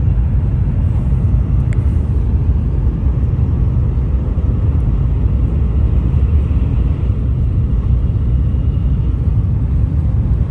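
Steady low rumble of a Sanyo Shinkansen train running at speed, heard inside the Green car's passenger cabin.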